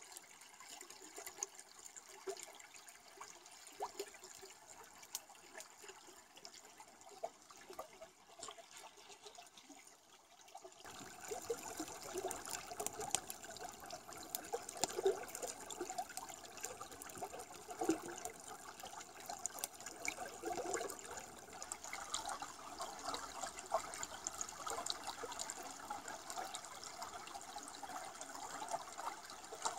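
Stream water running and trickling over rocks, faint for the first ten seconds or so, then louder and closer from about eleven seconds in, with many small ticks and splashes.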